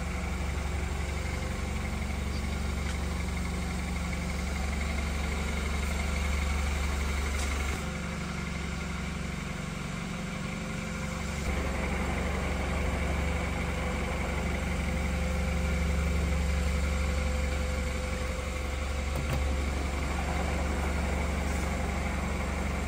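Freshly rebuilt BMW N20 2.0-litre turbocharged four-cylinder in a BMW X3 idling steadily, still cold, smooth and quiet.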